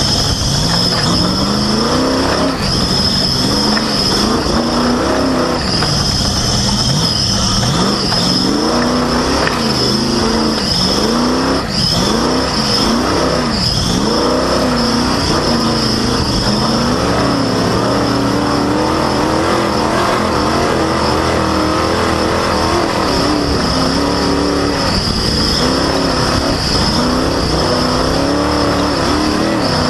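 Race vehicle's engine revving up and down repeatedly, then holding a steadier speed, heard from a front-bumper camera with heavy rushing noise. A steady high-pitched squeal runs over it throughout: a loud, squeaky drive belt.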